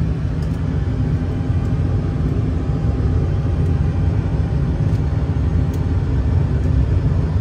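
Boeing 747-400 simulator cockpit sound of the engines at takeoff thrust and the runway rumble during the takeoff roll: a steady deep rumble that grows slightly louder as the aircraft accelerates.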